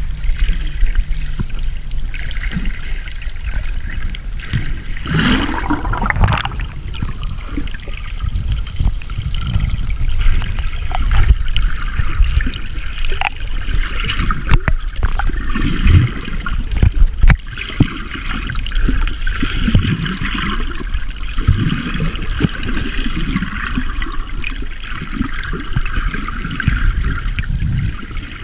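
Underwater sound picked up by a submerged camera: a constant low rumble and churning water, with several swishes from a swimmer's strokes and scattered sharp clicks.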